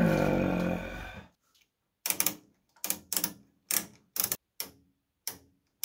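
A short falling hum of a man's voice, then a dozen or so sharp clicks in small groups from the rotary switch knobs on a Tektronix 564B storage oscilloscope's front panel, turned through their detents while hunting for the trace on a freshly powered-up scope.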